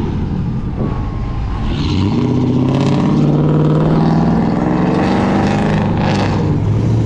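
Engine of a nearby car running and accelerating: its pitch rises from about two seconds in, then holds steady.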